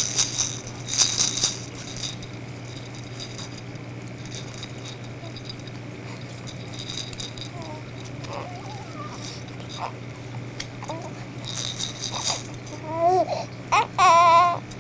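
A baby's toy rattle shaken in short bursts, several times, with a pause in the middle and a return near the end.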